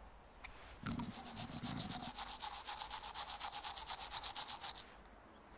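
Toothbrush scrubbing back and forth on teeth in fast, even strokes, about eight a second, starting about a second in and stopping abruptly near the end.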